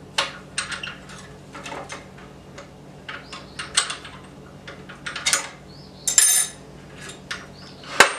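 Irregular light metallic clinks and knocks, a dozen or so spread unevenly, as tools and parts are handled at a wood lathe, over a steady low hum.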